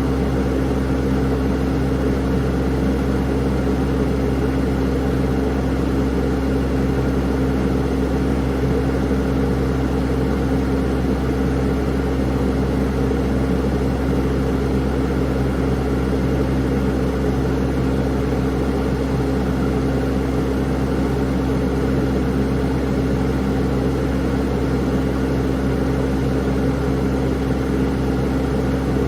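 An engine running steadily at an even speed for the whole stretch, a low hum with a steady tone above it and no change in revs.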